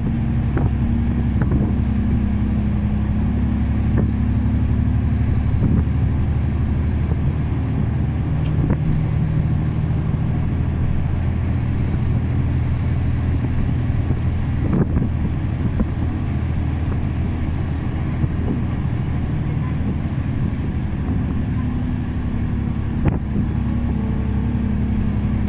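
City bus engine and drivetrain heard from inside the passenger cabin, a steady low hum whose pitch drops and later rises again with speed. A few short rattles or knocks from the bus body.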